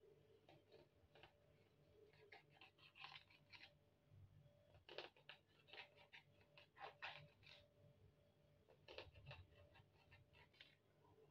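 Faint, irregular taps and clicks of a kitchen knife slicing rolled dough into strips against a wooden chopping board.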